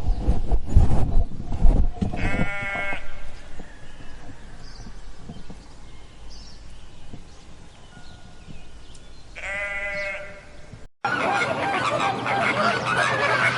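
A farm animal bleats twice, each a long wavering call, about two seconds in and again near ten seconds, after low rumbling noise at the start. After a sudden cut near the end, many loud overlapping bird calls take over.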